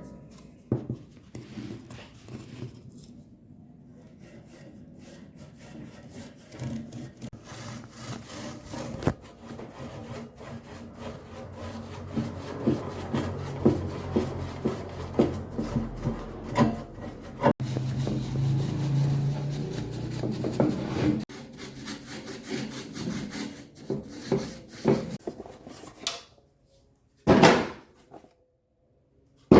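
Hand tool rubbing and scraping on wood in irregular strokes that grow busier through the middle, with a short louder burst near the end.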